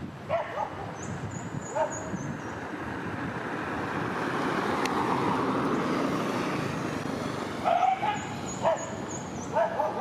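Village dogs giving short barks: two in the first two seconds, then three in quick succession near the end. A rush of background noise swells and fades in the middle.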